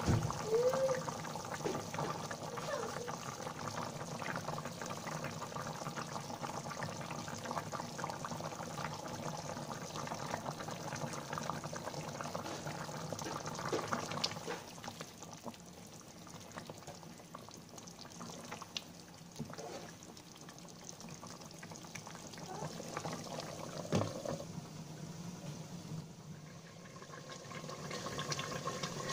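Chicken and potato curry bubbling at a simmer in a pan, a steady crackle of small bursting bubbles that grows quieter about halfway through, with one sharp knock late on.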